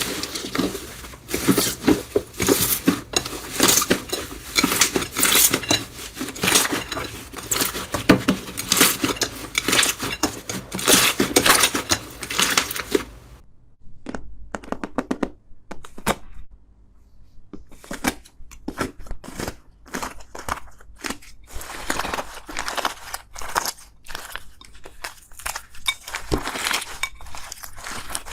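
Slime being squeezed and pressed by hand, with dense crackling and crunching. The crackling drops away almost to nothing about halfway through, then starts again a few seconds later.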